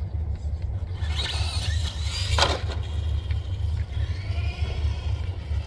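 ECX AMP MT RC truck's electric motor and freshly installed metal transmission gears whining, rising and falling in pitch as it speeds up and slows down on a test drive. There is a short sharp noise about two and a half seconds in, over a steady low rumble.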